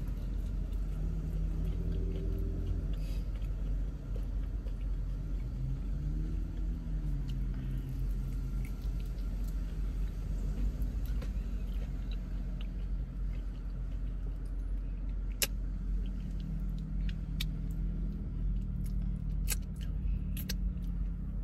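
Steady low rumble inside a parked car, with scattered small clicks and smacks of someone eating fried chicken wings.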